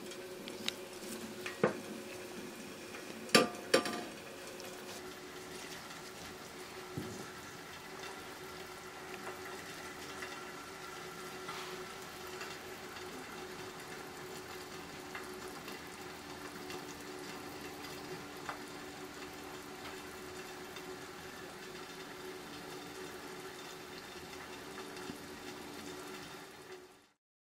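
Chicken soup simmering with a steady bubbling hiss over a faint steady hum. In the first four seconds a metal ladle clinks sharply against the pot and the earthenware bowl a few times.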